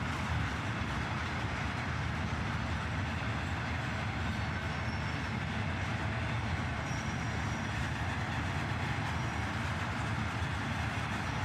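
Freight cars of a loaded continuous welded rail train rolling past, with steady wheel-on-rail noise.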